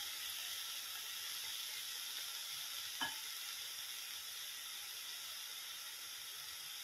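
Tender chickpea leaves sizzling steadily in oil in a nonstick kadhai, just sprinkled with a little water. The sizzle eases off slightly toward the end, with a single faint tap about three seconds in.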